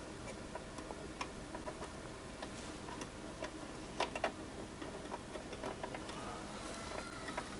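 Scattered small clicks and taps of a memory module being handled and pushed into an iMac memory slot, with a sharper pair of clicks about four seconds in.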